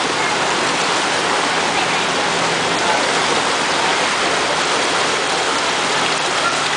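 Floodwater rushing and splashing steadily along the side of a bus as it ploughs through a flooded street, with a faint low engine hum underneath.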